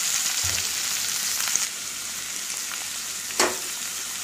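Freshly added chopped onions sizzling in hot oil in a kadai: a steady frying hiss that eases slightly after about a second and a half. A single sharp click comes near the end.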